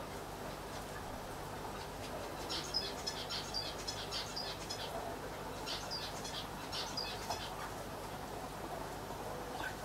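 Steady hum and hiss of aquarium air and filter equipment. Two runs of rapid high chirps from a small bird come a couple of seconds in and again around the middle.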